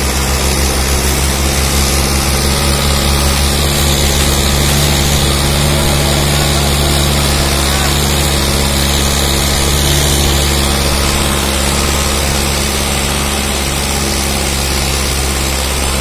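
Mahindra Arjun 605 tractor's four-cylinder diesel engine running steadily under load as it pulls a heavily loaded sugarcane trolley at low speed.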